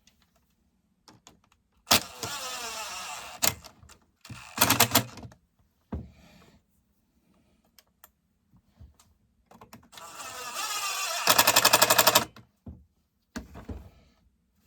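Small electric power tool running in two main bursts of one and a half to two seconds, the first falling in pitch as it runs down, the second ending in a rapid even clicking; a shorter clattering burst comes between them.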